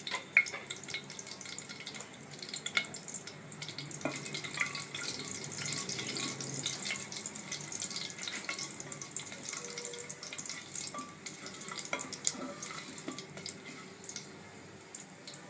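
Whole spices (bay leaf, cardamoms, peppercorns, cinnamon stick, caraway seeds) sizzling in hot oil in a pressure cooker, with many small crackles and pops.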